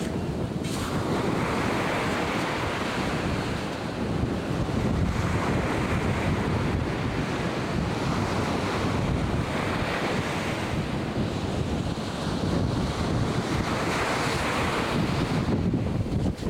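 Atlantic surf breaking and washing in, swelling about every four seconds, with wind rumbling on the microphone.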